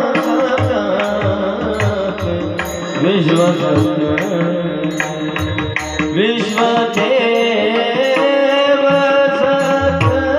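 Warkari kirtan devotional music: voices singing a drawn-out melody over drum strokes and steady beats of small hand cymbals.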